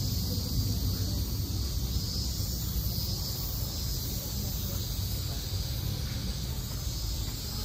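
Steady outdoor background noise: a constant high hiss over a low rumble, with no distinct events.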